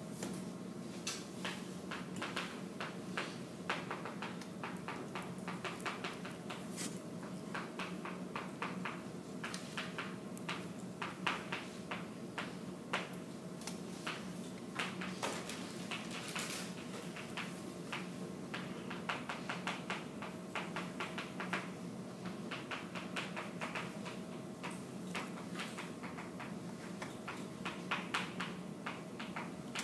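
Chalk writing on a chalkboard: quick clusters of taps and scratches, with short pauses between words, over a steady electrical hum in the room.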